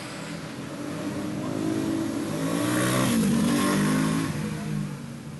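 A motor vehicle passing by: its engine grows louder over the first three seconds or so, the pitch shifts as it passes, and it fades away near the end.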